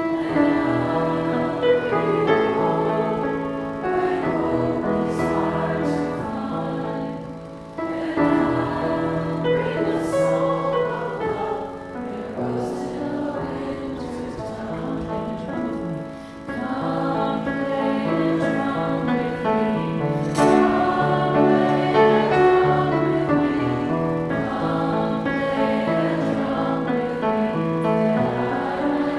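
A choir singing in phrases about four seconds long, over held low accompanying notes.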